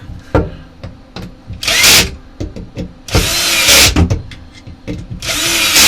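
Power drill driving the central screw into a wood blank in three short bursts, each starting with a brief rising whine as the motor spins up.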